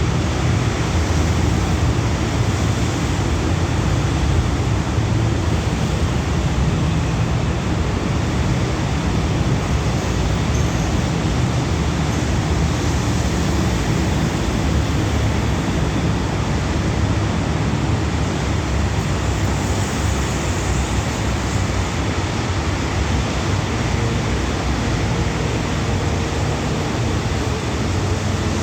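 Alsthom diesel-electric locomotive standing at a signal with its engine idling: a steady low rumble with a hiss over it, unchanging throughout.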